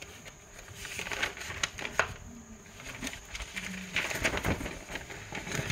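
Rustling and handling noise of notebook paper and the recording phone being moved, in two spells about a second in and about four seconds in, with a sharp tap near two seconds.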